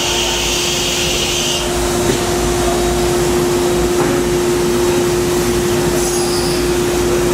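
2008 Fadal 3016FX CNC vertical machining center running a part program with flood coolant: a steady mechanical whine over the hiss and splash of coolant, with a brighter hiss that stops about a second and a half in.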